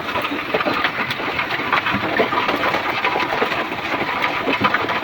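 Small two-stroke engine, likely a chainsaw, running steadily with a rattle of clicks and knocks as fallen wood is cleared.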